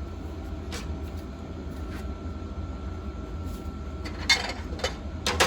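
Pellet grill running with a steady low hum and a faint steady whine, broken by a few short sharp knocks about four and five seconds in.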